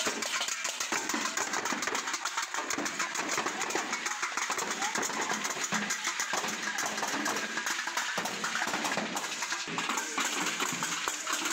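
Steel plates beaten rapidly and without a break with sticks as improvised drums, a dense metallic clatter, with children's voices under it.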